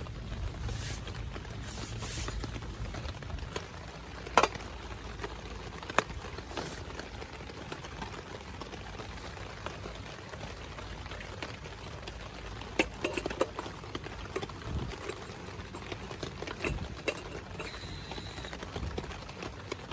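Steady rain falling, with scattered sharp drip taps close by, the loudest a little over four seconds in and a cluster around thirteen seconds.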